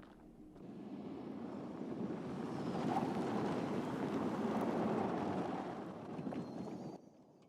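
Ford F-150 Lightning electric pickup driving past, tyre and running noise with no engine note, swelling to a peak midway and easing off before cutting off abruptly near the end.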